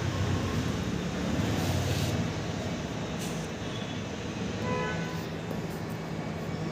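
Steady low background rumble, with a brief pitched tone about five seconds in.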